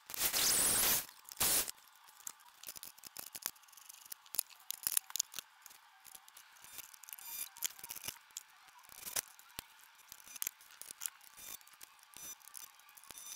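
Electric drill boring into a wooden 2x4 in two short bursts, then many small clicks, taps and scrapes of metal hardware as a caster wheel bracket is fitted against the post by hand.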